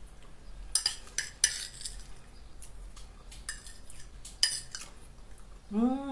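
Metal fork scraping and clicking against a plate several times while scooping up food. Near the end, a short steady hum from a voice.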